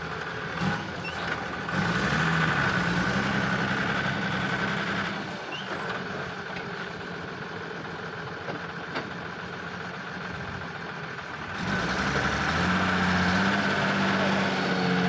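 Diesel lorry engine running under the driver's throttle as the truck's wheel is driven onto a loose tyre to press its bead off the rim: it revs up about two seconds in, settles to a lower run through the middle, and revs up again near the end as the wheel comes back off the tyre.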